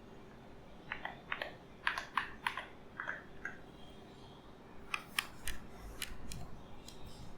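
Keys on an EWEADN V82 transparent mechanical keyboard clicking in two short, irregular runs of presses, the first about a second in and the second about five seconds in.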